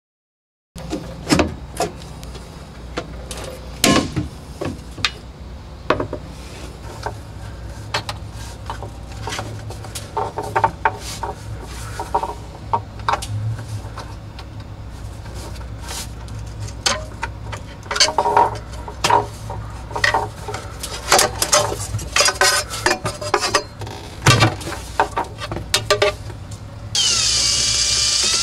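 Handling noise inside a wooden subwoofer enclosure as a woofer is worked into its mounting: irregular knocks, clicks and scrapes of the speaker and hands against the wood, over a steady low hum. About a second and a half before the end, a Makita cordless drill starts running with a whine, driving screws around the woofer's rim.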